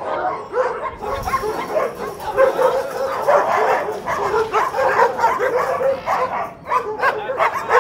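Several young and small dogs barking and yipping over one another without a break during play.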